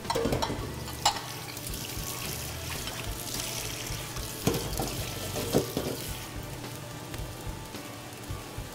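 Water and sauce bubbling and hissing in a hot wok of stir-fried vegetables as water is added for the sauce. A few sharp knocks come about a second in and again around four and a half and five and a half seconds in.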